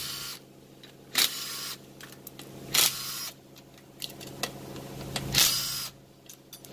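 Cordless impact wrench with a 12 mm socket running in three short bursts, about half a second each, spinning out bolts on the front of a Mazda RX-8's 13B rotary engine during teardown.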